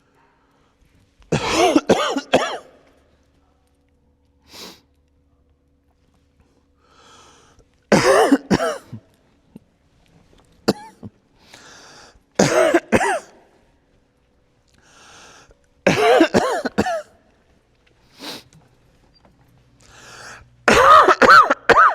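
A person coughing in about five hard fits, each lasting a second or so and spaced a few seconds apart, with fainter breaths and throat-clearing between them.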